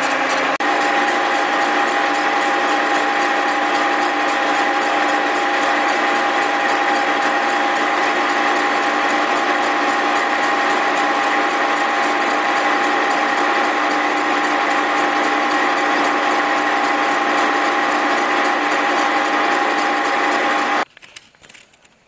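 Milling machine's face cutter taking a slow, light skim cut across the deck of a cast-iron Willys F-head engine block: a loud, steady metallic whine with a rapid, even ticking of the cutter's strikes. It stops suddenly near the end.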